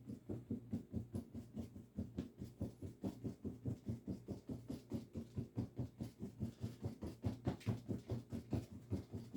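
Corner of a 2-inch paint brush loaded with acrylic paint dabbing rapidly on the painting, an even run of soft taps about five a second.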